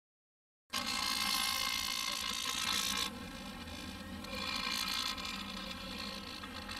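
Small vibration motor buzzing steadily, starting abruptly just under a second in and dropping in level at about three seconds.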